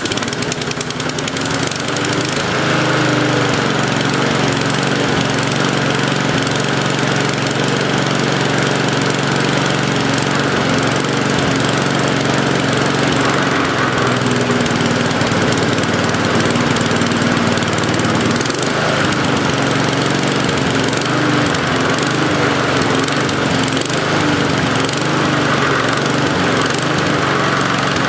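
Mountfield SV150 single-cylinder petrol lawnmower engine running just after being started, with the throttle worked between low and high revs. Its speed wavers up and down in the second half, the hunting these engines are prone to, which the idle-screw setting at about halfway has not cured.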